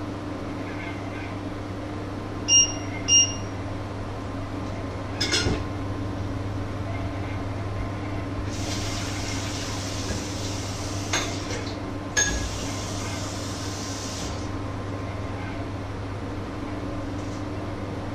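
Kitchen work sounds over a steady low hum: two short electronic beeps, a clink of cookware, then water running at the sink for about six seconds with a couple of sharp clinks of dishes.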